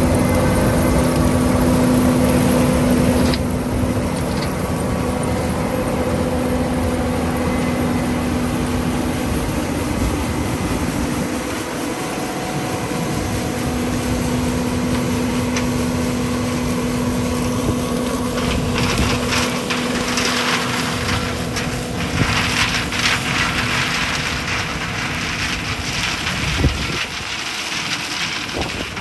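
Harvest machinery engine running steadily with an even hum, dropping a little in level about three seconds in. Over the last ten seconds or so, a rougher rushing noise joins it.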